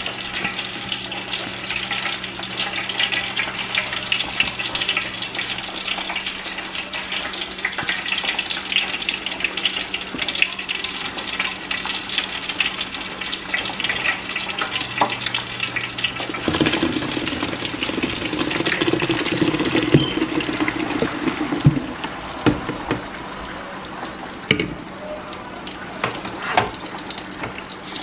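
Chopped onions sizzling and crackling in hot oil in a stainless steel stock pot, a dense steady crackle over a low hum. The crackle eases after about 22 seconds, and a few sharp knocks come near the end.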